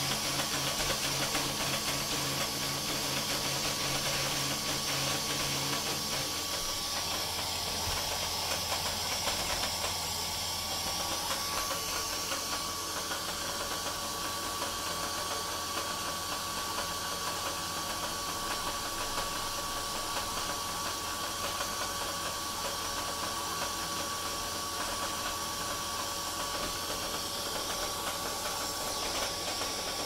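Neato D7 robot vacuum running, a steady fan hiss with a thin whine, as it keeps circling in the same spot, stuck in a loop.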